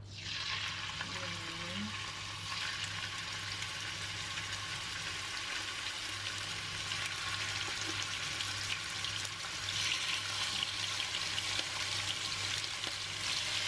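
Chicken breast pieces sizzling and crackling in hot oil in a non-stick frying pan as they are laid in with tongs, the sizzle growing louder as more pieces go in.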